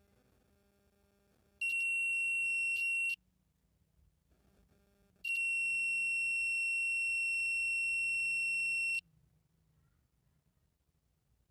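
Meter continuity beeper sounding while the test probes bridge a TV loudspeaker's terminals: two steady high-pitched beeps, a short one and then a longer one of a few seconds, each cutting on and off sharply. The beep shows the speaker's voice coil is not open, and the speakers check out healthy.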